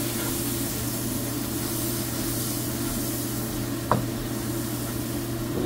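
Onion-and-tomato spice masala sizzling in a nonstick frying pan as it is stirred and fried with a splash of water, over a steady low hum. About four seconds in, the spatula knocks once sharply against the pan.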